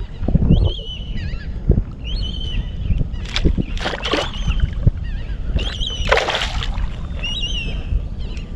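A hooked fish splashing at the surface beside a kayak, with one longer splash about six seconds in and a few short knocks, over a steady low rumble of wind and water. A bird gives short whistled calls that rise and fall, several times.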